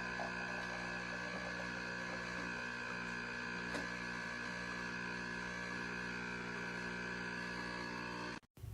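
A steady, even hum made of several held tones that do not change, which cuts off abruptly near the end.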